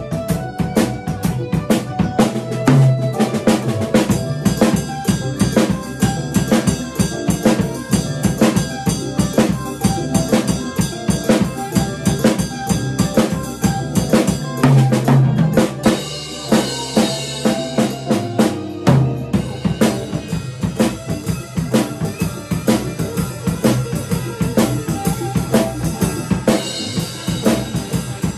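Drum kit played in a steady, busy groove of bass drum, snare and cymbal strokes. Meinl cymbals crash and wash out about halfway through and again near the end.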